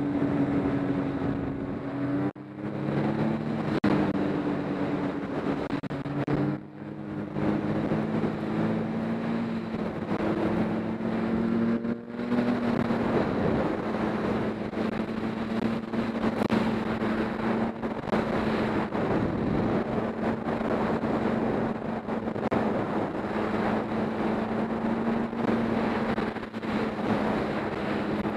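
Snowmobile engine running under way. Its pitch shifts and it dips briefly about two and about six and a half seconds in as the throttle is eased. From about twelve seconds it holds a steady pitch with a rushing noise under it.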